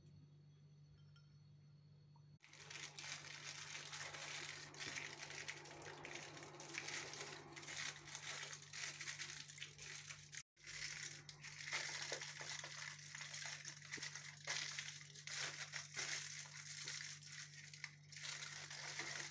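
Aluminium foil crinkling and rustling as it is folded and rolled around chicken fillets, starting about two seconds in, with a brief break about halfway.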